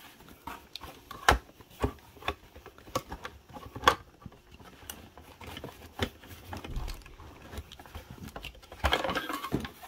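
Handling a boxed plastic security camera and its power adapter in a cardboard box: scattered plastic clicks and knocks with cardboard rustling, the sharpest knocks about a second and four seconds in, and a denser rustle near the end.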